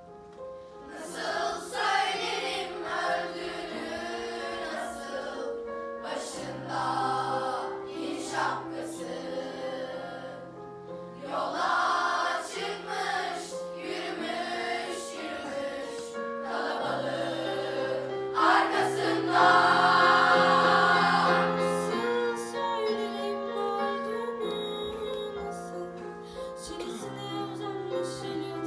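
Middle-school mixed choir singing a slow, mournful song with piano accompaniment, the phrases swelling loudest about two-thirds of the way through.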